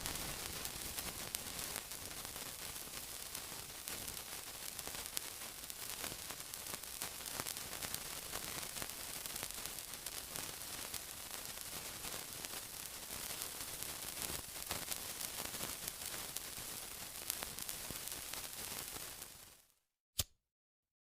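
Steady sizzling with a dense crackle of fine pops, strongest in the high range. It fades out near the end, leaving a short silence broken by a single click.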